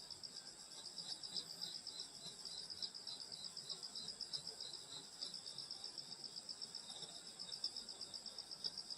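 Crickets and other grass insects chirping in a steady night chorus: a constant high trill with a pulsing chirp beneath it, about four pulses a second.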